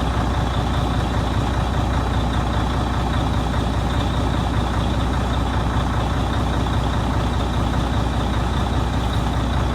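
Heavy truck's diesel engine idling steadily, running to build up its air-brake pressure after a start with the transmission set to manual.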